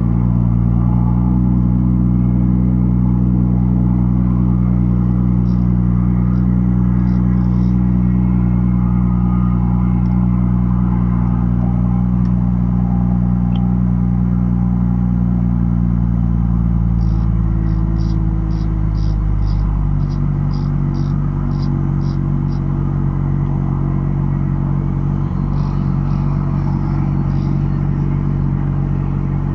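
A BMW M2's inline-six engine idling steadily, with the idle dropping to a lower pitch about 20 seconds in. Runs of faint, quick ticking come and go over it.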